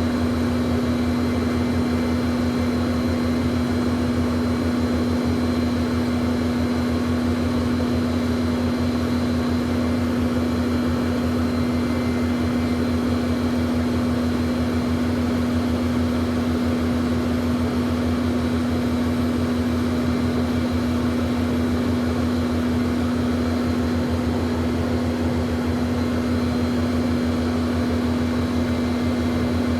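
Jet aircraft drone, steady and unchanging: an even rush of air noise over a constant low hum, with a faint high whine above.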